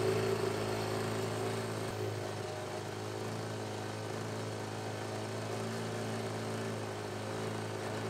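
Boat outboard motor running at a steady cruising speed, a constant low engine hum over water noise.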